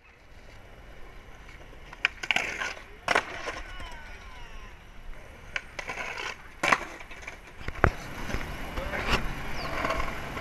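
Skateboard wheels rolling on stone pavement, broken by several sharp clacks of the board popping and landing.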